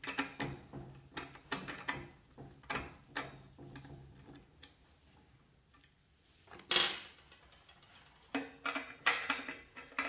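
Ratchet and socket clicking in quick, uneven runs as the rear axle nut of a child's bicycle is tightened by hand, with one louder metallic clatter about seven seconds in.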